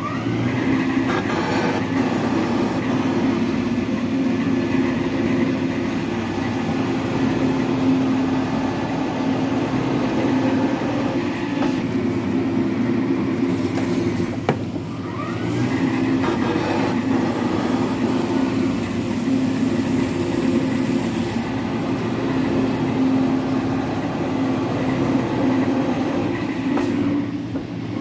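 Metal planer running, carrying a cast-iron lathe bed under its cutting tool: a steady mechanical drone that dips briefly about halfway through and again near the end.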